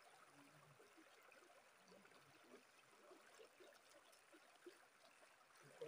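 Near silence, with the faint even wash of a shallow river flowing over rocks.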